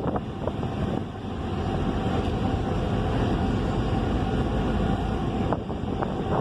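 Steady low rumble of a ferry under way, with a faint steady hum and wind buffeting the microphone. A few light knocks come near the start and again after about five seconds.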